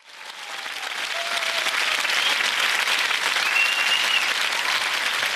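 Studio audience applauding, fading in over the first second, with a couple of whistles from the crowd.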